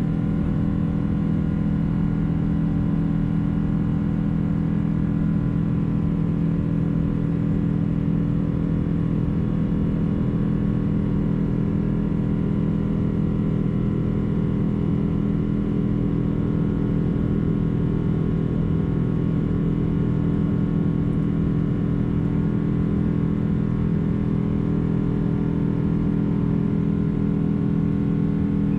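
Boeing 777-200 cabin noise from a window seat: the jet engines run steadily, giving a constant rumble with a steady hum. Near the end a few of the higher tones begin to rise.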